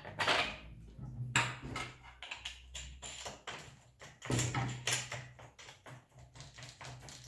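Plastic clicks, knocks and rattles as the auxiliary handle of a Parkside PRT 550 A3 electric grass trimmer is fitted onto its shaft and its locking knob is worked. The sharpest knocks come just after the start, about a second in and about four seconds in.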